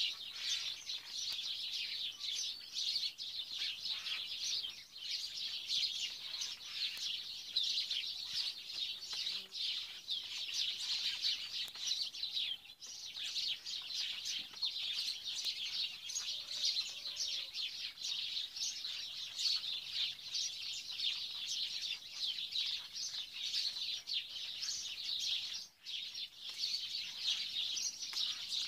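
Dense chorus of small birds chirping continuously, with a brief break about thirteen seconds in and another near the end.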